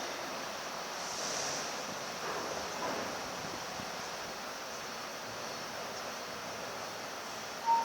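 Steady rushing noise with no clear pitch. Near the end a short tone sounds along with a brief jump in loudness.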